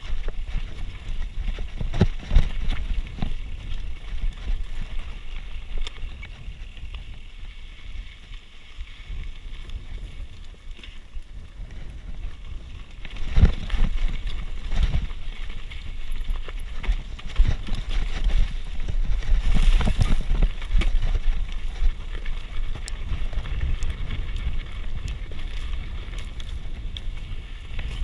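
Mountain bike rolling along a rocky dirt trail: tyres over dirt and stones, the bike rattling and knocking on rocks, over a steady low rumble. The knocks get louder and busier about halfway through and again a little later.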